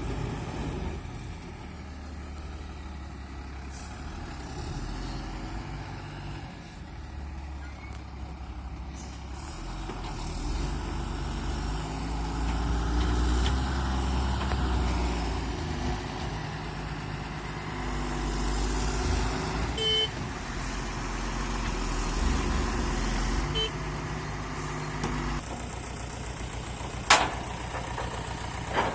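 Heavy diesel engines of a backhoe loader and a loaded tipper truck running under load, rising and falling in speed throughout. A few short clanks, and one sharp bang near the end that is the loudest sound.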